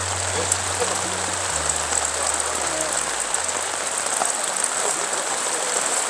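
Steady rain falling on a stretched camping tarp overhead. Low background music notes fade out about halfway through.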